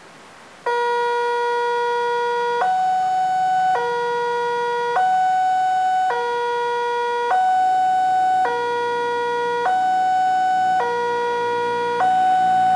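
Railway level-crossing warning alarm: an electronic two-tone signal alternating between a lower and a higher steady tone about every 1.2 seconds, starting under a second in. It warns that a train is approaching and the crossing is closing.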